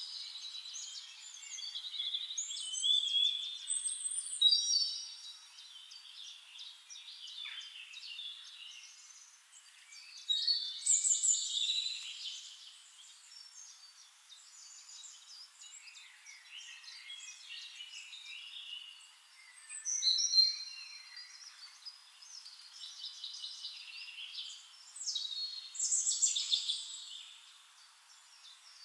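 Forest songbirds singing and calling, several overlapping voices of high chirps and quick trilled phrases. The song comes in louder flurries every several seconds, with softer calls between.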